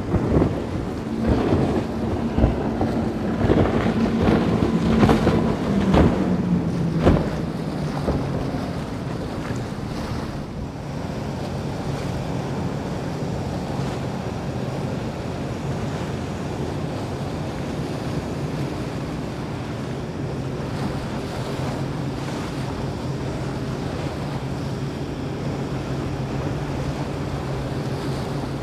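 Powerboat engines running at speed as a large center-console boat passes, with the hull thumping on waves and spray hissing; the engine tone drops in pitch as it goes by. Then a small skiff's single outboard motor runs steadily over the sound of water and wind.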